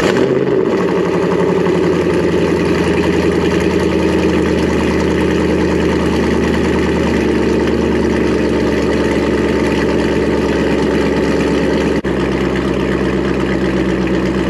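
A 1997 Chevrolet Corvette C5's LS1 V8 running at a steady idle just after starting, heard close to its quad exhaust tips. This is the engine's first run with a newly installed ATI Super Damper harmonic balancer.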